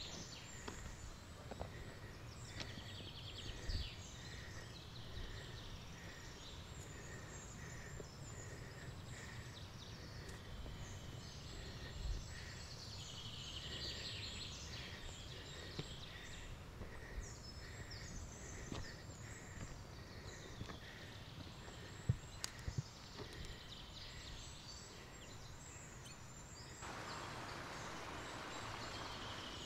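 Birds singing and chirping in an alpine meadow, one of them repeating a short call about once a second, with faint low thumps underneath. Near the end the birdsong gives way to a steady hiss.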